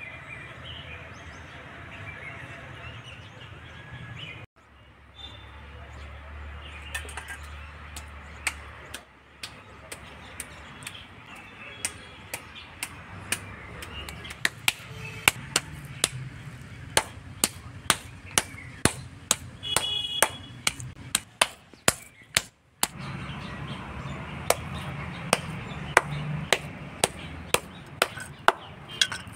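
A wooden mallet pounding raw chicken on a flat stone slab, beating the meat into a paste. The strikes come in a steady rhythm of about two a second, starting a few seconds in.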